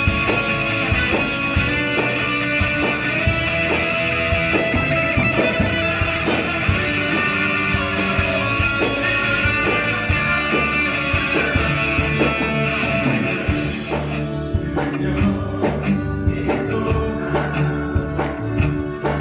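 Gibson electric guitar playing with a live contemporary worship band, with drums keeping a steady beat.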